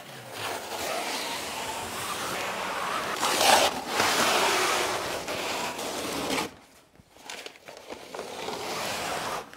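Peel ply being ripped off freshly laid-up fiberglass laminate: one long tearing rasp, loudest about three and a half seconds in, that stops about six and a half seconds in. Softer rustling follows as the peeled fabric is gathered up.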